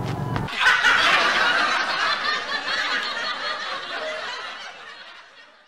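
Laughter of many people, a laugh-track effect, starting about half a second in and fading steadily until it dies away at the end.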